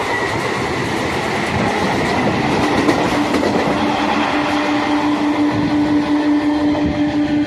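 Running noise of a suburban electric local train heard from its open doorway: wheels rumbling and clattering over the rails, mixed with the noise of another local train passing close alongside on the next track. A steady low hum comes in about two and a half seconds in and holds.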